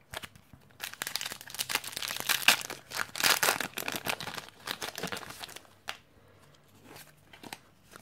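Foil wrapper of a Pokémon XY booster pack being torn open and crinkled, a dense crackling from about a second in until past the middle. Sparser crackles and clicks follow as the torn wrapper is handled and the cards are drawn out.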